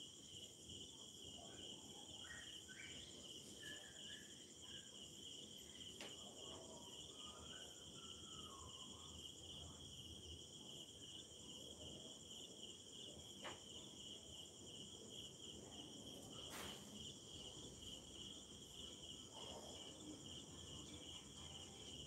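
Near silence with a faint, steady, high-pitched insect chirring and a few faint clicks.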